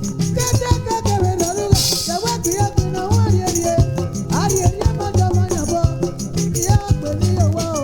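Edo highlife band music from a 1981 recording: a repeating bass line and fast, steady percussion under melodic lines that slide and bend between notes.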